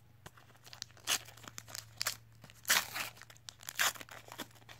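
Foil wrapper of a Panini trading card pack being torn open and crinkled by hand: a string of short tearing and crinkling rustles, about half a dozen, loudest near the middle.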